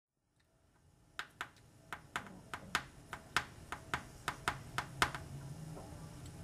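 A run of about fourteen light, sharp clicks, roughly three a second, that stops about five seconds in, over a faint low hum.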